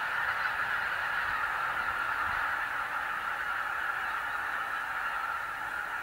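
A large flock of wild geese calling in flight: many birds honking and cackling at once, blending into a steady, dense chorus.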